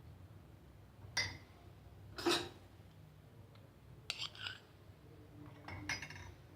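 A spoon clinking against small cups as a spoonful of honey goes into each cup of kadha: a handful of light, separate clinks, the loudest about two seconds in with a short ring.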